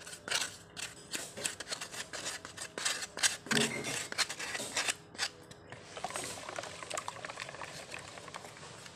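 A spoon scraping and tapping against a small ceramic ramekin over a bowl of egg mixture: a quick, irregular run of clicks and scrapes as custard powder is scraped out, then from about six seconds a denser, steadier scraping that fades toward the end.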